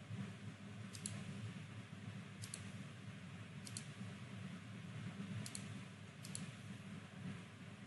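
Computer mouse clicks: five short press-and-release clicks, irregularly spaced a second or more apart, over a low steady background hum.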